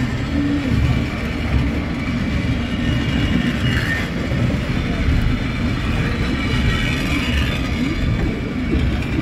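Lynton & Lynmouth Cliff Railway's water-balanced 1890 funicular car running along its rails, a steady low rumble.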